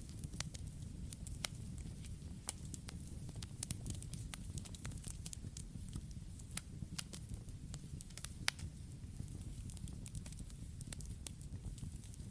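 Wood campfire burning: a steady low rush of flame with irregular sharp crackles and pops from the burning wood, the loudest pop about eight and a half seconds in.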